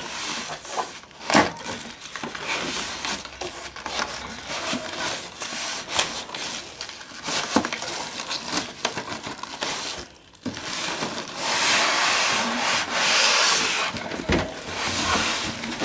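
Cardboard carton, styrofoam packing pieces and a plastic wrapping bag rustling and scraping as a printer is worked out of its box by hand, with scattered knocks and, late on, a few seconds of steady rubbing.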